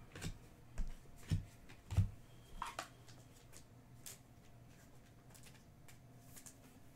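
Trading cards and a cardboard hobby box being handled: about four soft taps and knocks in the first two seconds, then a few faint clicks.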